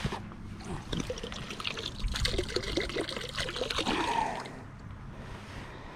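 Water trickling and gurgling, as from water pouring out of a small bottle picked up out of the creek. It is busiest in the middle and eases off near the end.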